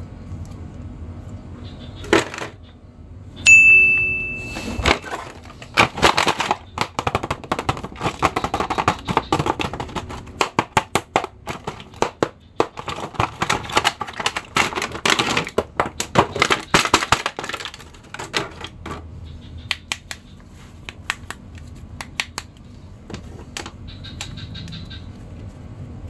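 Plastic blister packaging and a cardboard toy box crinkling and crackling as an action figure is handled and unpacked, with a dense run of crackles through the middle. A short high beep sounds about three and a half seconds in.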